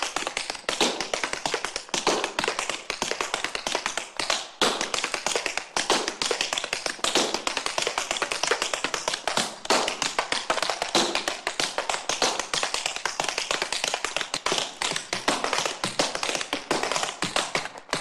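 Tap dancing with no music: a fast, irregular flurry of sharp tap-shoe clicks on a hard floor.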